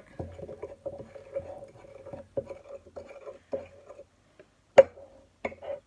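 A spoon stirring cake batter in a mug, scraping and clicking against the sides in quick repeated strokes, with one sharp knock a little before the end.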